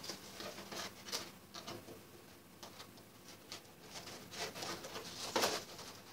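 Paper rustling and crinkling as a rolled A4 paper tube is stitched by hand with needle and thread: irregular scratchy rustles, the loudest a little after five seconds in as the thread is drawn out through the paper.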